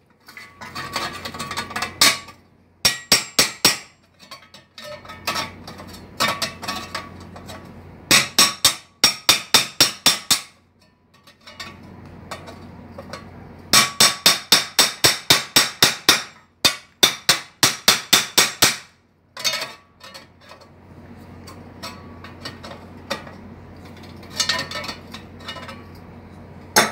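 Hammer tapping a thin stainless-steel exhaust muffler tube in quick runs of light blows, about five a second, with pauses between runs; the steel rings after each strike. The tube is being knocked back from an oval to round so its end cap will fit.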